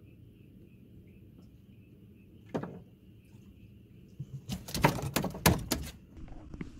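Insects chirring steadily, broken by a single knock and then, a little past the middle, a quick run of loud knocks and slaps.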